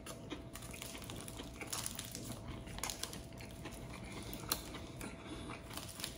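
A person chewing a crusty baguette sandwich with the mouth closed: many small, irregular crunchy clicks.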